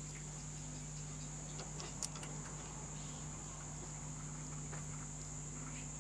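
Quiet workshop background: a steady high-pitched whine and a low electrical hum, with a few faint clicks, one a little louder about two seconds in.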